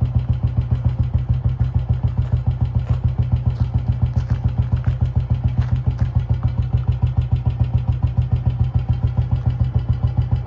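Royal Enfield Bullet 500's single-cylinder four-stroke engine idling steadily, with an even beat of about five to six pulses a second.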